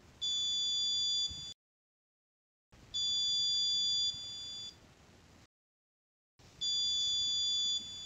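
A 5 V electronic buzzer on an Arduino sounds three separate high, steady beeps, each about a second and a half long and a few seconds apart. Each sounds while the float of a P43 float-switch water-level sensor is lifted, so the switch closes and the code drives the buzzer pin high. Each beep drops a little in level just before it stops.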